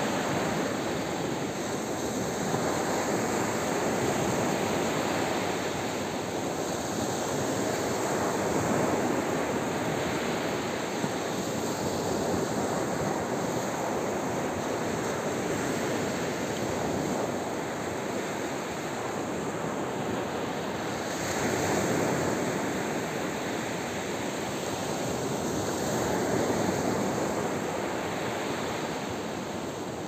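Small surf breaking and washing up a sandy beach: a continuous rushing that swells and eases every few seconds as each wave comes in.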